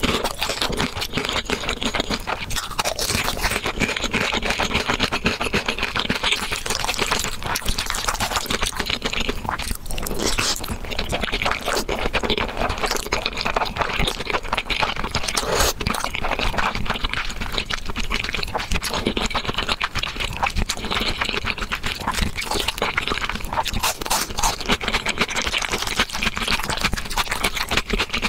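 Close-miked mukbang eating sounds: chewing and slurping thick noodles in black bean sauce and biting into crisp fried dumplings, a dense, continuous run of crunches and chewing noises.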